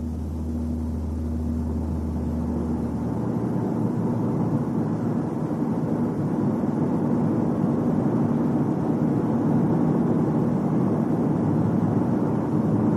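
Car driving, with road and running noise in the cabin growing gradually louder as it gains speed, and a steady low hum in the first few seconds. This is a road test for a droning boom that appears from 80 km/h and peaks at 90 km/h.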